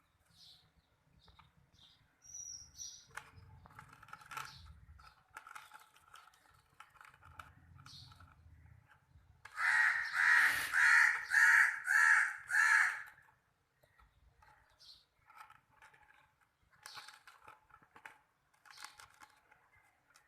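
Newly hatched Sussex chicks peeping, in scattered short calls. About halfway through comes a loud run of about six peeps, roughly two a second.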